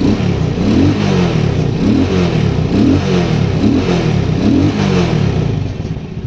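Shineray motorcycle engine revved in about five quick throttle blips, each a rising pitch, then settling back to idle near the end. The engine noise has just been repaired and it runs quietly, described as "bem silenciosa".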